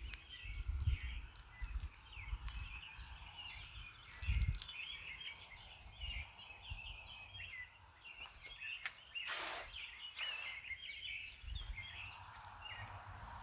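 Oil sizzling in a frying pan as chopped green onions cook. There is a short burst of hiss about nine seconds in, and the sizzle swells near the end. Throughout, dense high twittering chirps of small birds sound alongside a few low knocks of the pan and utensils.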